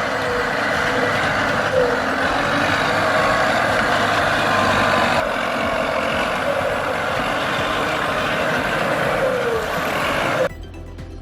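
Soviet-built heavy truck's engine running hard as it drives through mud, loud and steady with some wavering in pitch. The sound cuts off abruptly near the end.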